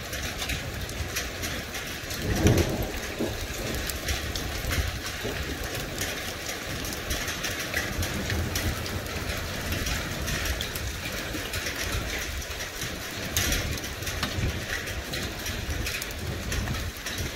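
Rain and hail from a thunderstorm falling hard, a dense patter of many small impacts, with thunder rumbling low underneath. A louder rumble swells about two and a half seconds in.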